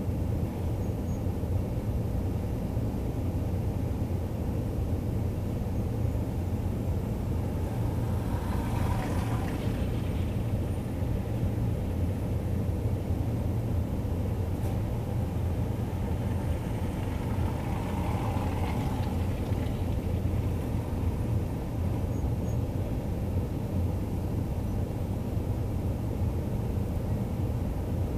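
Car driving through city streets: a steady low rumble of engine and road noise, with two swells of hiss about nine and eighteen seconds in.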